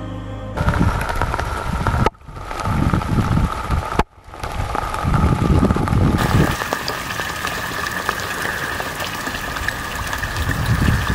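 Rain falling on a pond's surface, a dense steady hiss with low rumbles under it, cut off abruptly for a moment about two seconds in and again about four seconds in. A faint steady tone runs underneath and steps up in pitch about six seconds in.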